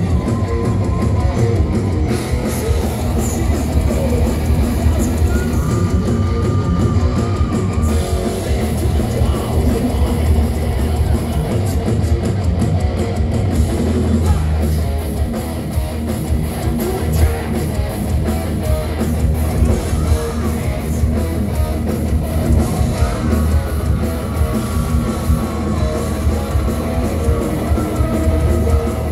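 Thrash metal band playing live at full volume: distorted electric guitars over bass and a pounding drum kit.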